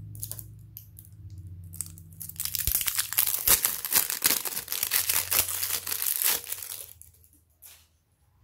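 Thin clear plastic wrapping crinkling as hands peel it off a small plastic toy ball, a dense crackling that starts about two seconds in and stops about five seconds later.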